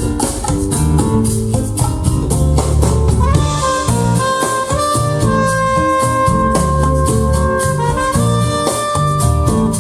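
Jazz-fusion music played back through a KEF Q11 loudspeaker driven by a Pioneer SA-708 amplifier: drums and bass throughout, with a sustained melody line coming in about three seconds in.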